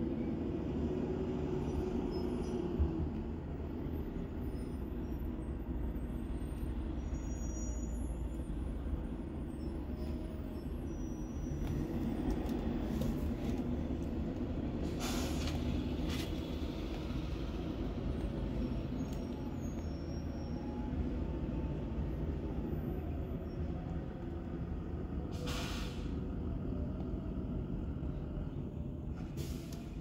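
School buses driving past with their engines running in a steady low rumble, with short air-brake hisses about halfway through and again near the end.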